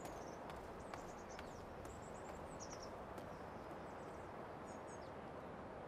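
Faint outdoor ambience: a steady background noise with scattered short, high bird chirps.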